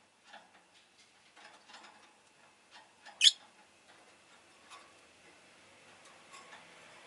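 Rosy-faced lovebird making small clicking and chirping sounds, with one sharp, loud, high chirp about three seconds in.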